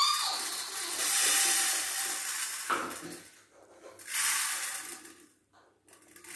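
Dry foxtail millet grains poured loosely into a measuring vessel, a hiss of falling grain: one long pour, then a shorter one about four seconds in.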